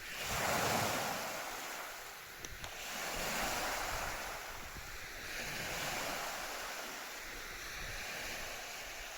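Lake waves washing onto the shore, surging and ebbing every couple of seconds, with some wind.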